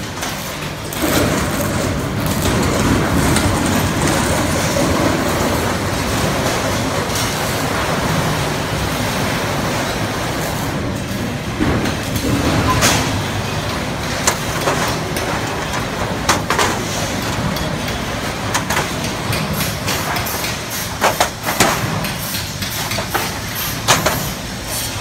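Sheet-metal filing cabinet parts being moved and handled on a concrete floor. A steady rumbling noise starts about a second in and runs for some ten seconds, then gives way to scattered sharp metal knocks and clanks.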